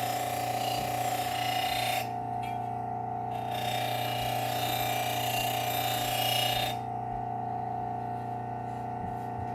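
Work Sharp Ken Onion Elite belt sharpener running with a steady whine, while a steel mulching mower blade is ground against the abrasive belt in two long passes: one to about two seconds in, the next from about three and a half to nearly seven seconds. After the second pass the motor runs on alone.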